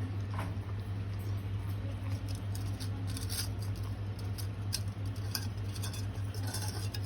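A retriever licking and eating ice cream: irregular wet smacking and lapping, over a steady low hum.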